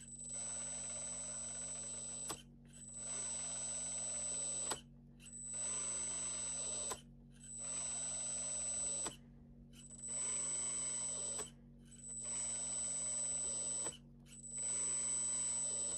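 Electric hydraulic pump of a 1:14 RC Bobcat track loader (LXY SM870) running in seven bursts of about two seconds each, with short breaks between: a steady high whine over a whirr, as the hydraulic grapple bucket is worked open and closed.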